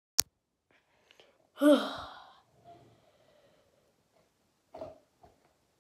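A sharp click at the very start, then a short breathy voiced sound from a person, falling in pitch, and a brief softer vocal sound near the end.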